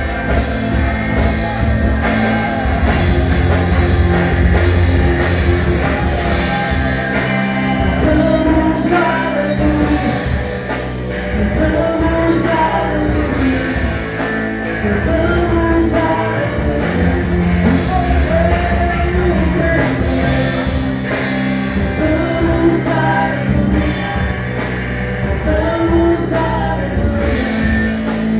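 Church worship band playing rock-style music, with singing over a steady beat.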